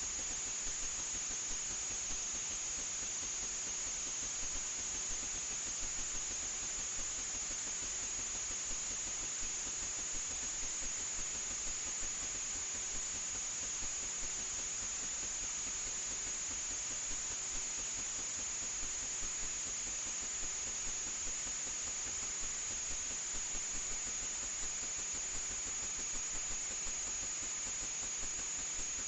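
Steady hiss with a high, even whine on top and small irregular ticks, unchanging throughout.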